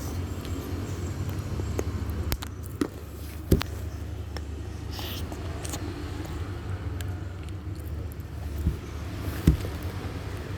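Steady low rumble with a few sharp clicks and knocks scattered through it, the loudest about three and a half and nine and a half seconds in, and a short hiss near the middle.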